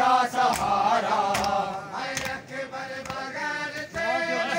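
Male voices chanting a Muharram nauha lament, with sharp chest-beating slaps of matam falling in rhythm about once a second.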